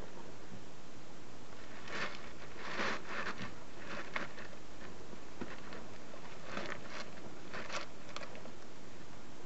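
Steady hiss with scattered faint rustles and crackles, a few short ones clustered around two to three seconds in and more near the end.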